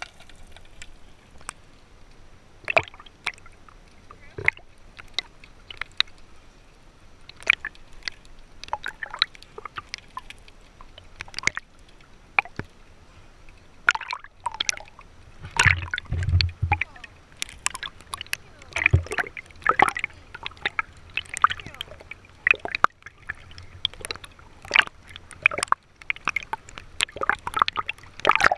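Seawater sloshing, splashing and gurgling against an action camera's waterproof housing as it moves through and across the sea surface: a steady stream of irregular sharp splashes, with a heavy low thump about halfway through.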